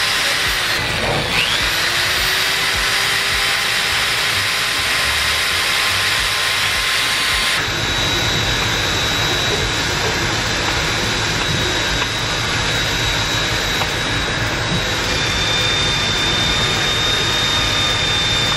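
Handheld corded electric drill running with a steady motor whine and rush; about a second in its pitch dips and glides back up as the speed changes. After an abrupt change partway through, a similar steady motor whine and rush continue.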